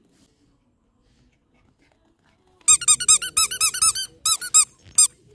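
A dog's squeaky toy ball squeaking in quick runs of short, high squeaks, about four or five a second. The squeaking starts about two and a half seconds in.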